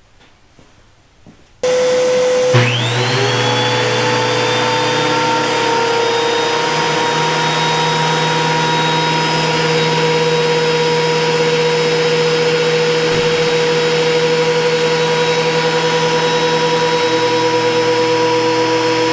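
DeWalt DW734 thickness planer switched on about two seconds in: its motor and cutterhead spin up with a rising whine, then run at a steady loud whine. A twisted board is fed through on a very shallow setting, so the cutterhead takes no material and the infeed rollers grab the board and then stop pulling it.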